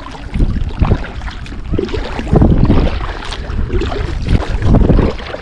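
Wind buffeting the microphone in irregular low rumbles, over the wash of water around a kayak.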